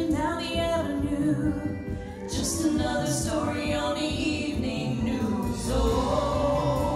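Two women singing a duet through handheld microphones, their voices held in long sung phrases.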